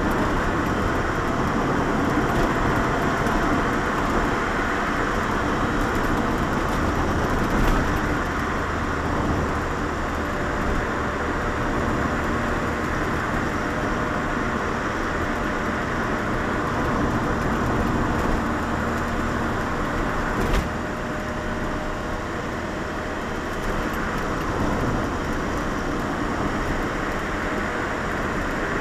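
Lotus Elise driving at a steady pace, heard from inside the cabin: continuous engine and tyre-on-road noise. A single short knock sounds about two-thirds of the way through.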